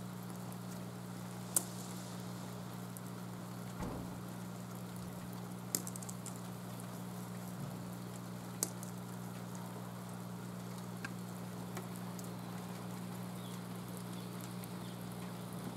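Steady rain patter, with a few sharp clicks scattered through it over a low steady hum.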